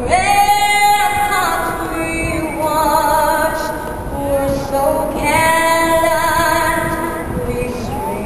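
A woman singing a slow song in long held notes, one swelling up about a second in and others held around the middle and latter half.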